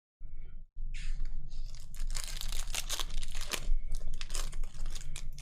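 Foil trading-card pack wrappers being torn open and crinkled, a dense irregular crackle that starts about a second in.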